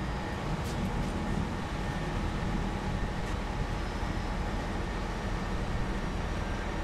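Excavator's diesel engine running steadily, an even low mechanical hum.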